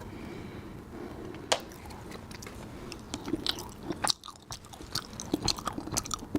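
A person chewing and biting food close to the microphone, most likely a soft, sticky Fuping dried persimmon: wet mouth smacks and small clicks, with one sharp click about a second and a half in and the smacks coming more often in the second half.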